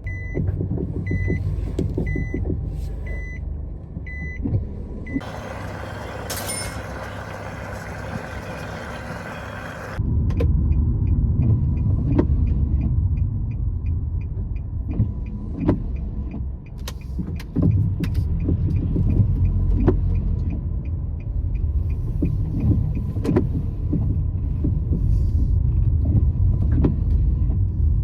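Car heard from inside: evenly spaced electronic beeps at first, a hiss for a few seconds, then from about ten seconds in a louder low engine and road rumble with regular ticking and occasional knocks.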